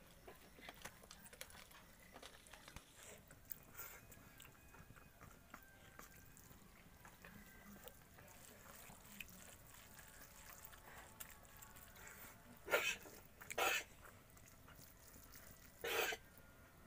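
Quiet hand-eating from a steel plate: faint clicks and small scraping ticks of fingers mixing and scooping rice. Two short, louder rustling bursts come about three-quarters of the way through, and a third just before the end.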